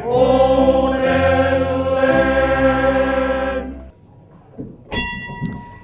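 A male choir holds the long final chord of a song, which ends a little before four seconds in. Then a large hanging bell is struck once, about five seconds in, and rings on.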